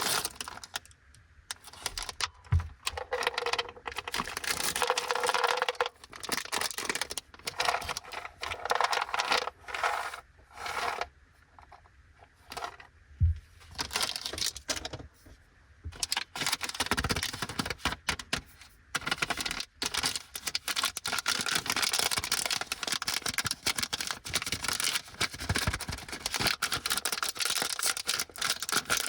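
Plastic sweet wrappers crinkling and tearing as packs are opened by hand, broken by quick clicks, taps and rattles of packaging and small items. After about sixteen seconds the crinkling becomes nearly continuous as a Bandai Chiikawa Charapaki chocolate pack is opened.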